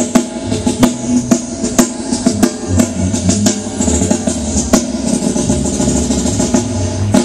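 Live drum kit playing a beat, with sharp snare and kick hits and cymbals ringing, over a low bass line.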